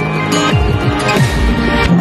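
Background music: electronic music with steady held tones over low bass notes that keep sliding downward.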